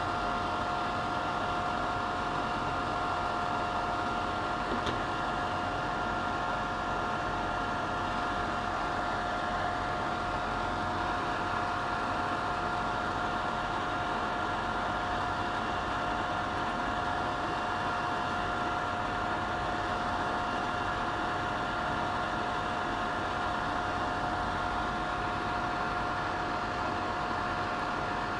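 A 24-volt cabinet extraction fan running steadily: an even whirring with a constant pitched whine over it.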